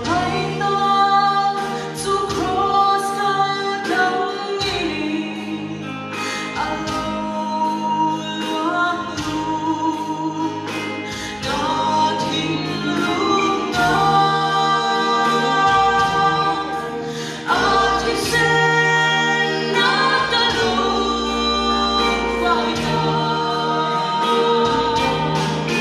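Three vocalists, two women and a man, singing a gospel song in harmony into microphones, backed by a live band with sustained low notes underneath.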